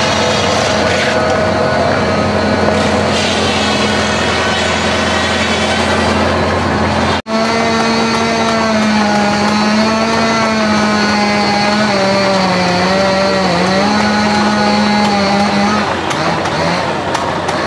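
Antique engine-driven machinery running with a steady mechanical drone. The first part is an excelsior machine shaving a log bolt into wood wool. After a sudden cut about seven seconds in, a belt-driven flywheel log splitter runs, its drone wavering and sagging in pitch for a few seconds before it steadies.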